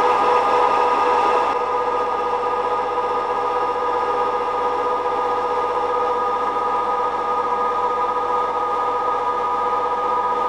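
Metal lathe running, its cutting tool turning down a metal bar for a nut, with a steady machine whine that gets a little quieter about a second and a half in.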